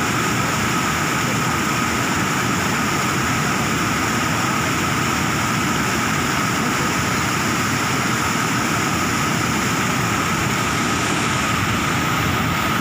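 Fast, muddy floodwater rushing through a concrete weir channel in a steady, unbroken roar.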